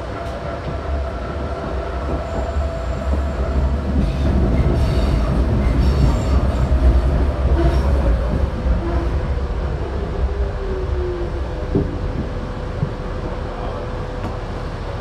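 Berlin U-Bahn G1/1E small-profile train running on an elevated steel viaduct, heard from on board: a steady rumble of wheels on rail with a steady whine. About two thirds of the way through, a whine falls in pitch as the train slows.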